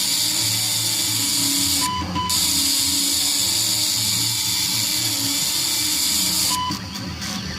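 Arduino-controlled CNC votive candle engraver running fast. Its stepper motors hum in tones that jump from pitch to pitch as the axes move, under the high hiss of the engraving tool. The hiss cuts out briefly about two seconds in and again near the end.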